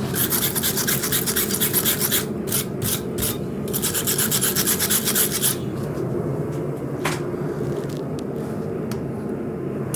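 Rapid hand scraping strokes on a forged steel knife blank, about seven a second, in two runs of about two seconds each with a few strokes between. A steady low hum runs underneath, and there is a single click about seven seconds in.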